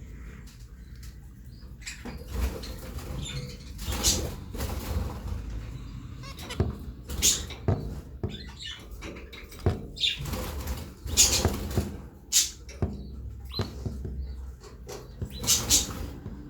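Zebra finches fluttering in their cage: irregular wing flaps and small knocks and rustles, a few of them sharper and louder.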